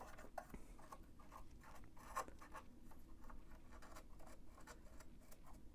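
Faint scratching and brushing strokes from a small lint brush sweeping lint out of a Bernina sewing machine's works beneath the removed stitch plate, with one slightly louder stroke a little over two seconds in.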